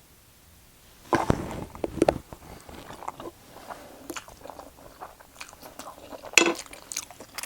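Biting and chewing food close to the microphone. Crunching bites start about a second in, followed by chewing and mouth smacking with many small clicks, and another sharp crunch about six seconds in.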